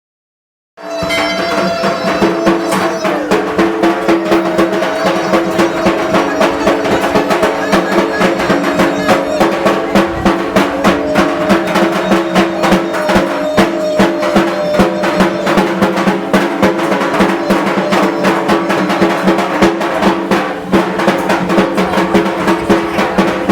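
Fast, steady drumming with rapid strokes over sustained tones, beginning abruptly about a second in.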